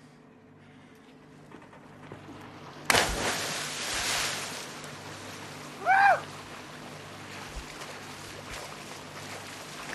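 A person jumping feet-first into the sea: a sudden loud splash about three seconds in, then churning water settling. About three seconds later comes a short, loud cry that rises and falls in pitch.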